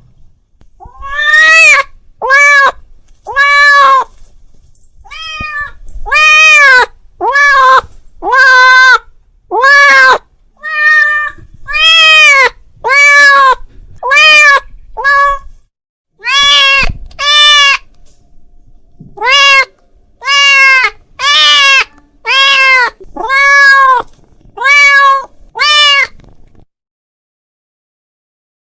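A cat meowing loudly over and over, calling out: about two dozen meows, each under a second long and rising then falling in pitch, with short gaps between. The calls stop about two seconds before the end.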